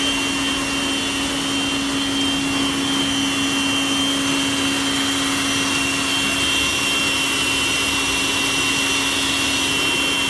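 Small electric motor driving a belt-driven perforated trommel drum of a model waste-segregation machine, running steadily with a hum and a high whine over it.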